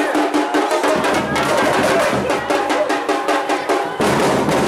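Street carnival percussion group playing a fast, dense drum rhythm, with voices in the crowd.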